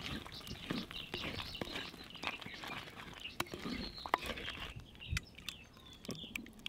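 Birds chirping in many short calls, with scattered sharp clicks and a few soft low knocks.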